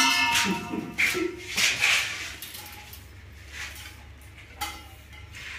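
Stainless steel railing tube and fittings clinking and ringing as they are handled and seated on the post. The loudest, longest ring comes at the start, with lighter clinks about a second and two seconds in and one more near the end.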